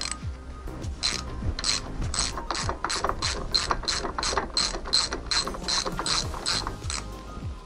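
Socket ratchet clicking in steady strokes, about three clicks a second, as it turns out the bolts that join the two halves of a classic Mini 8.4-inch front brake caliper.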